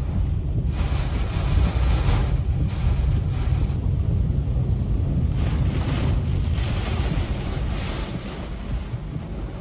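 Hurricane-force eyewall wind gusting hard, buffeting the microphone with a deep steady rumble. Loud rushing surges come about a second in and again from about five to eight seconds in, easing toward the end.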